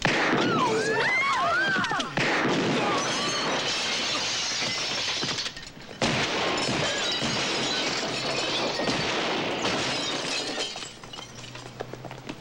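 Film fight sound effects: screams over a crash, then long stretches of smashing and shattering glass and crockery. There is a short break about five and a half seconds in, and it quietens near the end.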